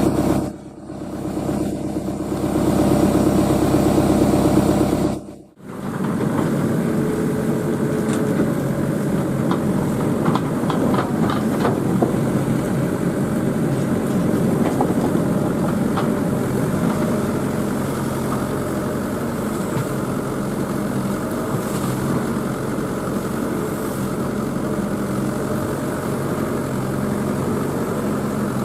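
Excavator's diesel engine running steadily under work. It is louder and deeper for the first five seconds, then breaks off abruptly and settles to an even run. A scatter of faint clicks and snaps comes around ten to twelve seconds in.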